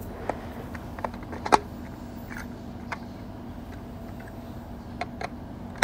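Hard plastic parts of a toy airliner clicking and knocking as a tail stabiliser is pushed into its slot on the fuselage: a few scattered clicks, the loudest about a second and a half in.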